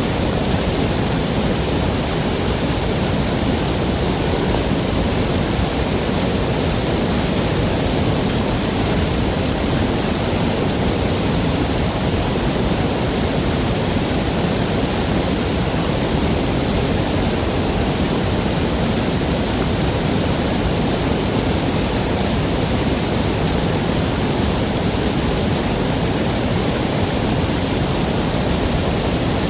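Waterfall rushing: a steady, unbroken noise of falling and churning water with no distinct splashes or changes.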